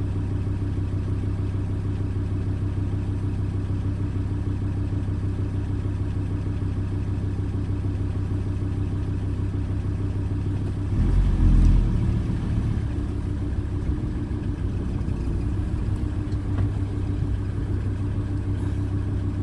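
Volkswagen T4 campervan's engine idling steadily, heard from inside the cab, with a louder low rumble swelling briefly about eleven seconds in.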